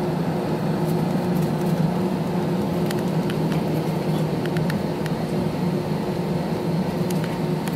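Steady low drone inside a passenger jet's cabin on the ground, from its idling engines and air conditioning, with a few faint clicks.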